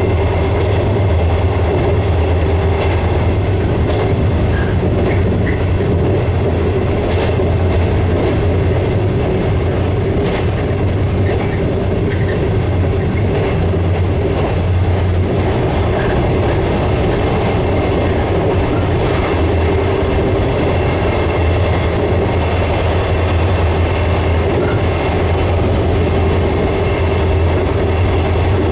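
JR West 115 series electric train running at steady speed, heard from inside the driver's cab: a loud, even rumble of wheels and running gear with a steady motor hum, and a few faint sharp clicks over the rails.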